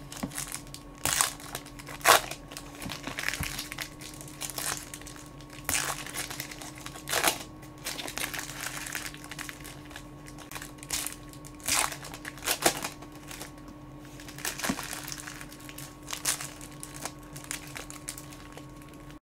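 Foil wrappers of trading-card packs being torn open and crinkled by hand, one pack after another, in irregular sharp crackly bursts.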